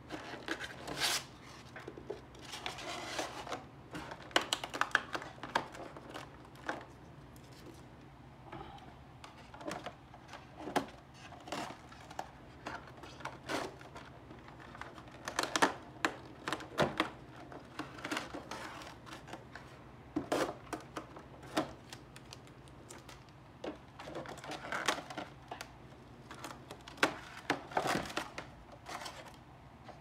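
Hands handling a foam model airplane in polystyrene packaging and plastic wrap: irregular rustling and crinkling of the plastic, with sharp clicks and taps and scissors cutting the wrap.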